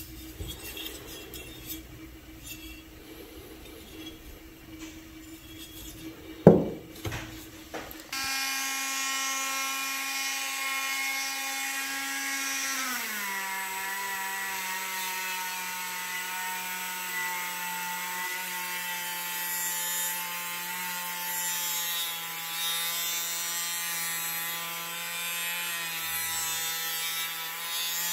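Quiet handling of hand-plane parts with one sharp knock about six seconds in, then a handheld rotary tool with a sanding pad starts up and runs with a steady whine. About five seconds after starting, its pitch drops and holds lower while the pad is pressed onto the plane's metal body, and it rises again near the end as the load comes off.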